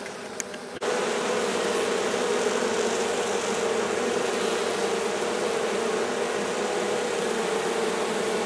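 A colony of honey bees humming in and around their hive. The hum is faint with a few clicks at first, then turns suddenly loud and steady about a second in and holds.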